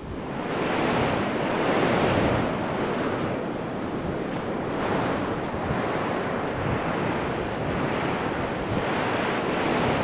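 Ocean surf breaking on a beach, a steady rushing wash that swells over the first couple of seconds, with wind blowing across the microphone.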